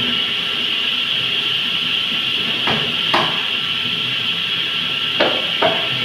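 Table saw cutting AAC (aerated concrete) blocks: a steady high whine and hiss from the spinning blade, with two pairs of sharp knocks as blocks are set down and pushed on the steel table, about two and a half seconds in and again about five seconds in.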